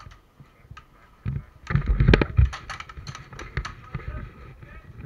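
Airsoft gunfire in the surrounding game: rapid, irregular clicks and snaps, with a louder thump and rustle about two seconds in.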